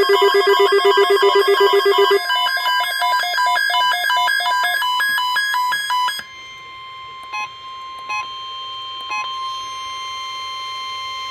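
Weather alert radio's electronic alarm beeping rapidly, changing about two seconds in to a different pattern of alternating beeps. About six seconds in it gives way to a steady single-pitch NOAA Weather Radio warning alarm tone, with a few faint clicks, signalling an alert message to follow.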